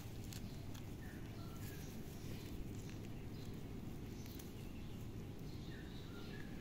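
Quiet outdoor background: a steady low rumble of ambient noise with a few faint short chirps and scattered light clicks.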